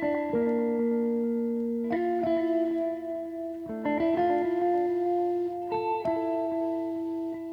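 Background music: a light instrumental tune with notes and chords changing every second or two.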